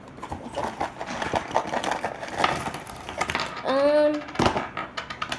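Toy magic kit being handled: a string of small irregular clicks and rustles of plastic pieces and packaging, with a short hummed voice sound about four seconds in, followed by a sharp click.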